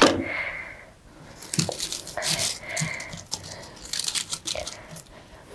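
Irregular crinkling and rustling as artificial foliage sprigs and their wire stems are handled and pressed into a flower buttonhole.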